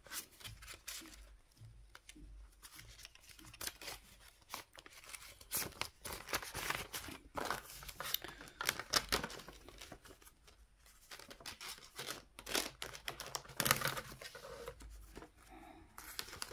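Laminated paper envelopes and paper banknotes rustling and crinkling as hands flip through the envelopes in a file box and slip notes in, in uneven crackly runs, busiest around the middle and again a little before the end.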